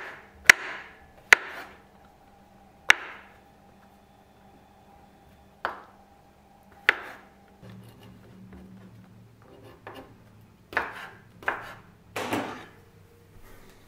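Kitchen knife slicing king oyster mushroom on a wooden cutting board, each cut ending in a sharp knock of the blade on the board. About nine knocks come slowly and unevenly, with a faint steady hum underneath.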